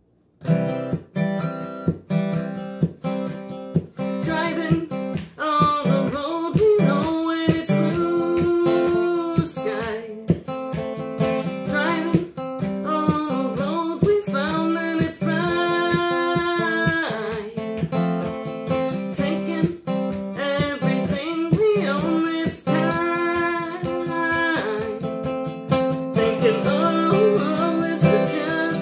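Acoustic guitar strummed in a steady rhythm, with a woman singing over it from a few seconds in.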